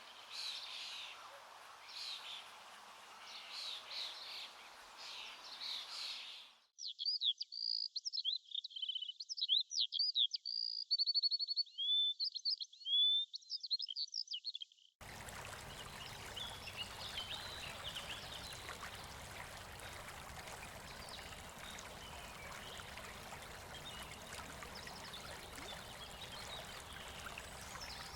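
Birds singing and calling over light background noise. Suddenly this gives way to clear, isolated birdsong of quick whistles, chirps and trills with no background at all. About halfway through, a steady rush of flowing river water cuts in abruptly, with faint bird calls above it.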